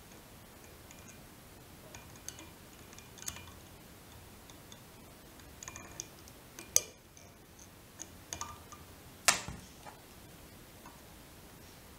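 Light metal clicks and ticks from a whip-finish tool winding thread around the head of a fly in a tying vise to tie off, with two sharper clicks about seven and nine seconds in.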